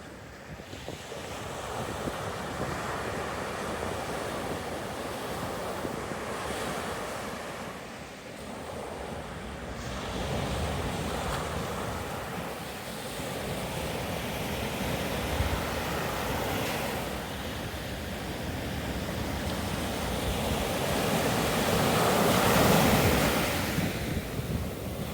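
Ocean surf washing onto a beach, swelling and easing every few seconds, with wind buffeting the microphone. The biggest swell comes near the end.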